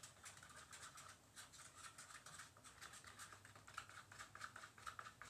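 Faint, rapid scraping and tapping of a small stirrer against the sides and bottom of a paper cup as green mica is stirred into soap.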